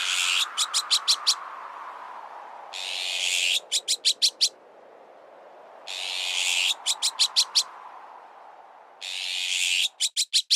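Azure-winged magpie alarm calls repeating about every three seconds, four times: each is one long harsh rasp followed by five or six quick rasping notes. They sound over a steady whoosh of strong wind that slowly sinks in pitch, in a looped bird-repellent mix.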